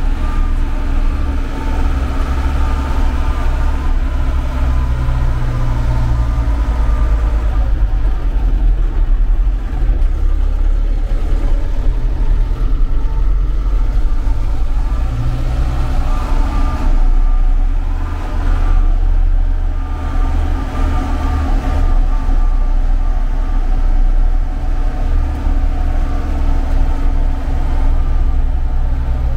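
Mercedes-Benz MB-trac tractor's diesel engine running steadily, a deep continuous drone that swells and eases slightly now and then.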